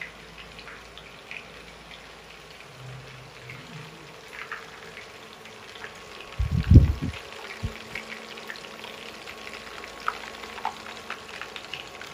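Meatballs frying in a pot of oil, a steady sizzle dotted with small crackles. A loud cluster of low bumps about six and a half seconds in, and another single bump a second later.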